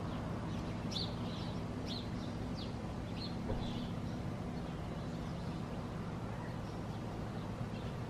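Small birds chirping in short, scattered calls, most often in the first half, over a steady low background hum.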